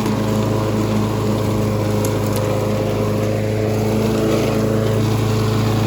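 Gas lawn mower engine running steadily at a constant speed.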